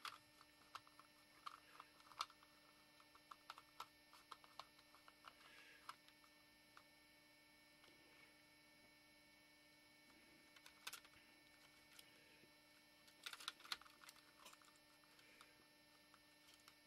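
Near silence with a faint steady hum, broken by scattered small clicks and ticks of plastic lens-barrel parts being turned and seated by hand as a zoom lens ring is worked onto its cam grooves, with a few louder clusters of clicks past the middle.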